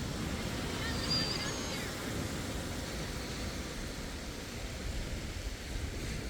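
Hydraulic excavator's engine running steadily as an even, noisy rumble, with a brief high chirp about a second in.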